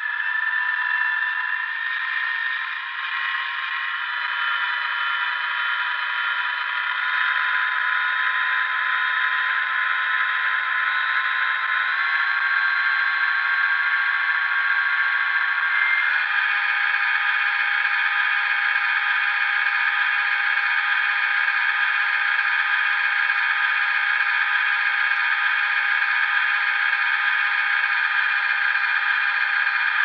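Digital sound decoder playing an EMD 645 diesel prime mover in a model SD45 locomotive, notching up: the engine note steps up in pitch several times in the first half, then holds steady at the higher notch. It comes through the model's small onboard speaker and sounds thin, with no bass.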